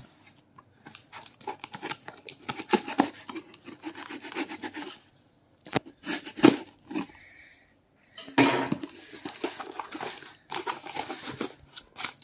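Packing tape on a cardboard shipping box being slit and scraped with a blade in short, irregular strokes. In the second half, tape tearing off and the cardboard flaps and a paper packing slip rustling as the box is opened.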